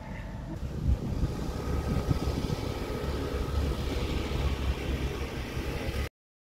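Small motorcycle engine of a three-wheeled motorbike cargo cart running as it drives past, a steady rumble, with a single sharp knock about a second in. The sound cuts off suddenly near the end.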